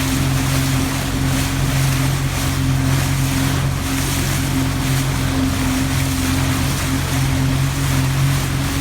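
Boat's motor running steadily at a constant pitch under way, with water rushing past and wind buffeting the microphone.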